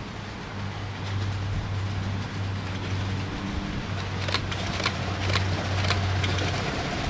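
Miniature steam locomotive approaching along the track, with sharp regular beats about twice a second starting about four seconds in as it draws near. A steady low hum runs underneath and stops near the end.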